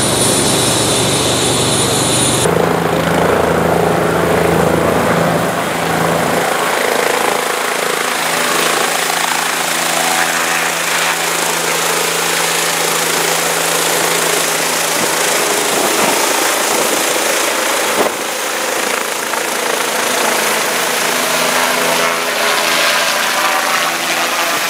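Air-ambulance helicopter's turbine engine and rotor running loud and steady as it lifts off. A high whine drops out about two and a half seconds in.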